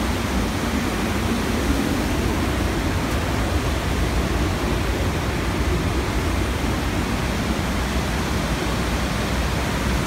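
Steady rush of water pouring over a concrete dam spillway, an even noise with a heavy low rumble.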